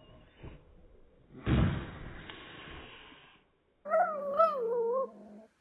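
A kitten's wavering yowl, lasting about a second and a half near the end. It comes after a sudden rush of noise about a second and a half in that fades over about two seconds.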